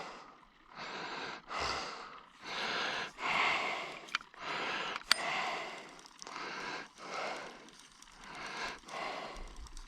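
A person breathing hard close to the microphone, in regular noisy breaths about once a second. Two sharp clicks come about four and five seconds in.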